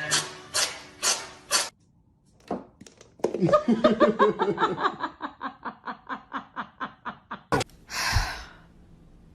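A person laughing hard: a long run of quick, pitched 'ha' bursts that gradually slows and fades. Near the end comes a sharp click, then a short burst of hiss.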